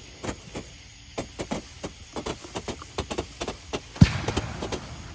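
Small consumer fireworks going off: a run of sharp, irregular pops and cracks, several a second, then a louder bang about four seconds in followed by a fizzing hiss.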